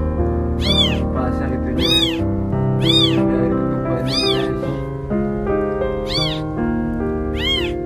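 Newborn kittens mewing: short, high-pitched cries that rise and fall in pitch, about one a second. These are the calls a newborn kitten makes for its mother. Background music with sustained notes plays under them.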